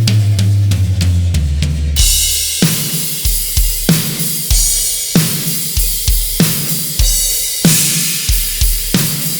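Early-80s Pearl Export double-bass drum kit being played: a fill down the toms, dropping lower with each drum, then a steady beat of bass drum and snare under ringing cymbals.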